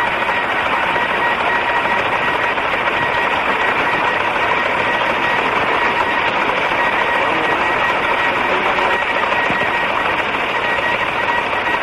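Teleprinter printing an incoming news cable: a steady, continuous mechanical chatter, with two faint steady tones underneath.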